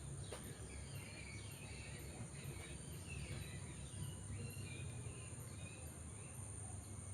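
Night insects chirping: a steady high trill with a faster regular chirp repeating above it, a few short scattered calls, over a low steady hum.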